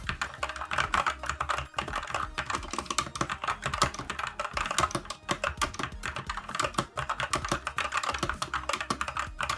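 Fast, continuous typing on a Skyloong GK64 mechanical-style keyboard with stock Gateron Brown optical switches, many keystrokes a second. The switches and stabilizers are unlubricated, which gives a sound the owner calls not one of the best.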